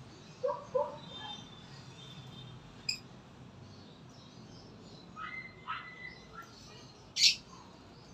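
Birds calling and chirping on and off: two short calls about half a second in, faint high chirps, then a quick run of sweeping chirps past the middle. A sharp click near three seconds and a brief loud hiss-like rustle about seven seconds in stand out above a steady low background.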